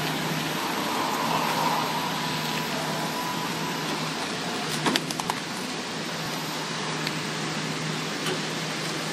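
Horizontal flow-wrap packing machine running: a steady machine hum and whir, with a brief cluster of sharp clicks about five seconds in.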